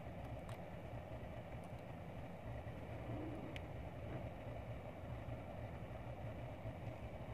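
Steady low mechanical rumble of a running motor, with two faint clicks.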